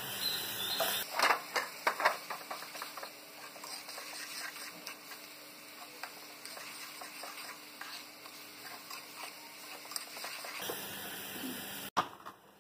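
Sliced green chillies, ginger, garlic and onion sizzling in butter in a pan for a tadka, with a spoon clicking against the pan as they are stirred. The loudest clicks come in the first couple of seconds, and the sound drops out briefly near the end.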